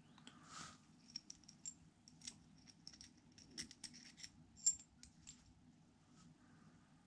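Faint small metallic clicks and taps as a thrust washer and gear are handled on a pit bike gearbox shaft, some with a slight ring, the sharpest about four and a half seconds in.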